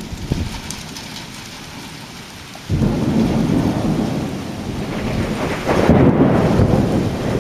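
Rumbling storm noise of wind and rain, heaviest in the low end. It jumps suddenly louder about three seconds in and swells again near the end.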